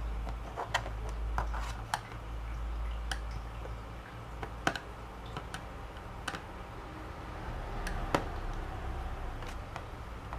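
Irregular light clicks and taps, spaced a second or more apart, of a small screwdriver and screws working on a laptop's plastic bottom cover as the rear screws are taken out, over a low steady hum.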